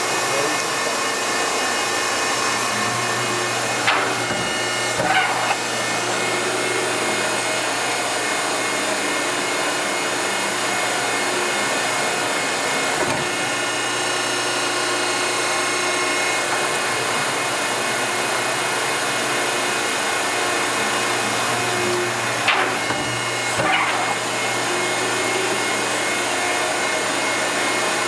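Selco baler's hydraulic power unit running steadily while the ram travels in and out of the baling chamber, with a pair of short knocks about four seconds in and another pair a little past twenty seconds.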